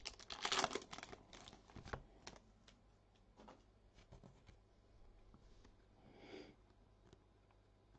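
Foil trading-card pack wrapper crinkling and tearing open, loudest in the first couple of seconds, then a few faint clicks and rustles as the cards are handled.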